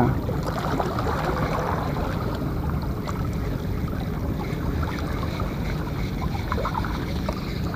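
Steady, low seaside background noise: wind and small waves lapping against the rocks of a seawall.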